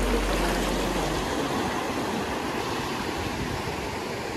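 Ocean waves breaking and washing up the shore in a steady rush. The tail of background music fades out in the first second or so.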